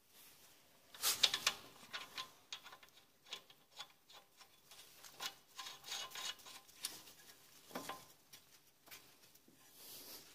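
Faint, irregular metallic clicks and scraping of hand work on the strut's mounting bolts and nuts during reassembly, busiest about a second in.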